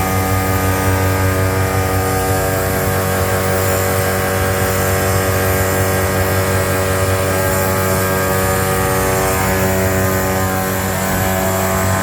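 Carriage-type finger-jointing machine running steadily, a loud continuous machine hum holding several steady pitches.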